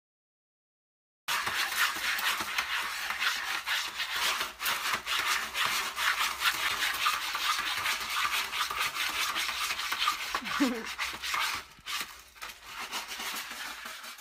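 A cat digging in a plastic litter box, its paws raking and scattering pellet litter in a fast, continuous run of scratching strokes that starts about a second in.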